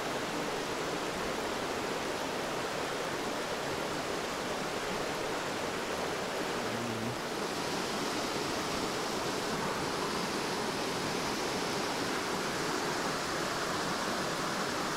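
Small cascade on a rocky mountain headwater stream pouring into a pool: a steady rush of water.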